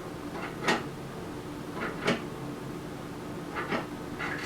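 Handling of lathe parts and accessories: a handful of short, irregular knocks and clunks over a faint steady hum.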